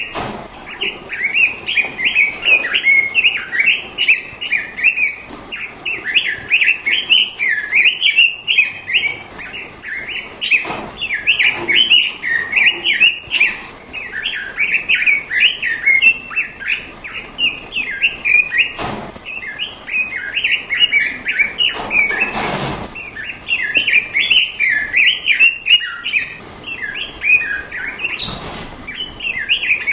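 Songbird singing a fast, dense, unbroken run of high chirps and twitters. A few short knocks or rustles cut in, the longest about two-thirds of the way through.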